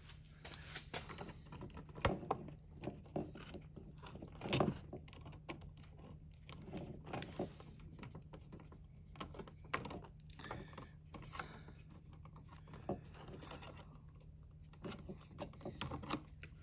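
Irregular light clicks and scrapes of hands working stiff electrical wires and a switch in a wall box, with a couple of sharper knocks about 2 and 4.5 seconds in.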